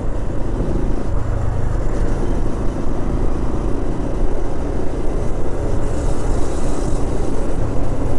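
Motorcycle engine running steadily on the move, with an even hum of road noise.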